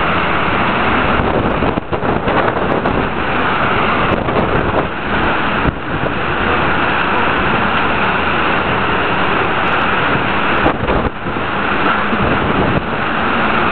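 Hurricane wind: a loud, steady rush of noise that dips briefly a few times.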